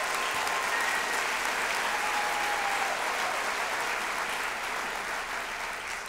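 Large audience clapping, a steady wash of applause that tapers off near the end.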